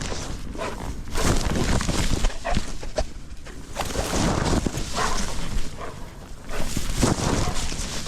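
A dog moving about, heard from an action camera strapped to it: irregular rustles, knocks and jostling of the camera against the dog, over a low rumble of wind and handling on the microphone.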